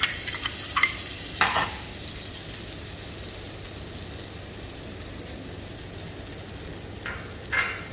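Butter melting and sizzling in a hot black pan. A metal spoon scrapes and clicks a few times in the first second and a half and twice more near the end.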